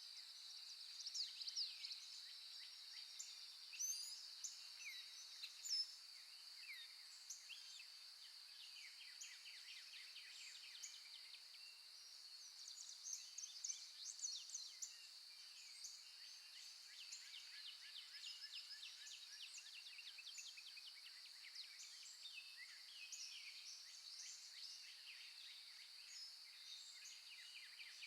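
Faint natural birdsong: several birds chirping and trilling on and off throughout, over a steady high-pitched background drone.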